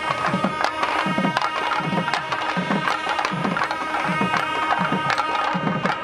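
A South Indian folk band of several nadaswaram-type double-reed pipes plays a sustained melody together. Under it a thavil drum keeps a steady beat of low, deep strokes, about two to three a second, with sharp stick clicks.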